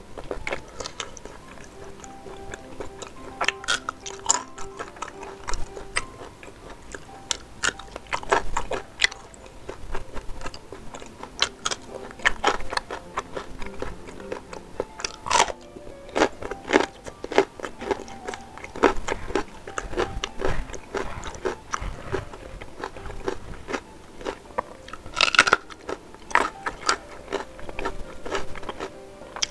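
Close-miked eating: a person biting and chewing saucy sempol chicken skewers and crunching raw green chilies. It comes as many sharp, wet clicks, with louder clusters of crunching at several points.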